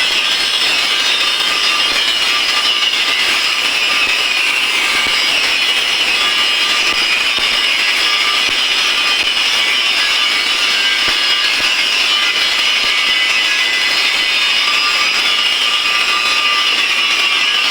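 Electric arc welding: a steady, unbroken hiss of the arc.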